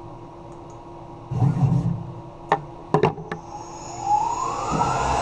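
Tormach 1100 CNC mill running with a steady hum, a rumbling knock and a few sharp clicks. About four seconds in the spindle spins up with a rising whine and settles into steady running.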